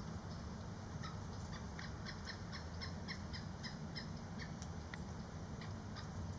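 Pileated woodpecker calling: a run of about a dozen short, even notes, about four a second, that stops after a few seconds. A few faint clicks follow, over a steady low rumble.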